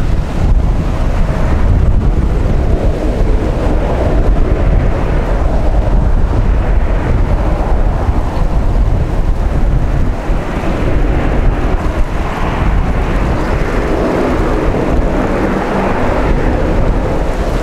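Boeing 737-800's CFM56 turbofans running steadily at low thrust as the airliner taxis and turns to line up on the runway. Wind buffets the microphone heavily.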